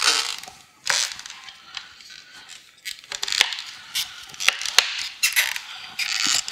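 Plastic bumper cover and its plastic fins creaking and crackling under the hands as they are pressed and bent over, with irregular sharp snaps and clicks.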